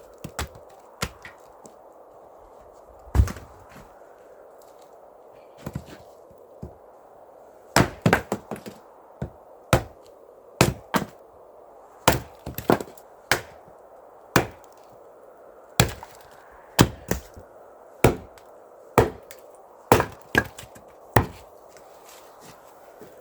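Wood being chopped: a series of sharp strikes, a few early on and then about one a second, some in quick pairs, over a steady low hiss.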